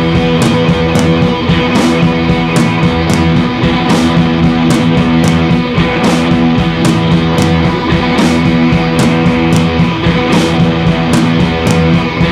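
Background rock music with guitar and a steady beat, cymbal hits about twice a second.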